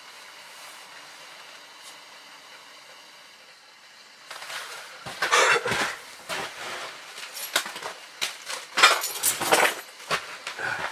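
A low, steady hiss, then from about four seconds in a run of irregular loud rustling and clattering as someone moves about and handles gear at the camp stove, with bulky winter clothing brushing close by.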